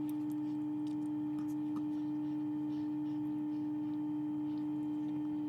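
A single steady electronic tone, a pure held note like a sustained synth note, unchanging throughout, with a few faint clicks under it.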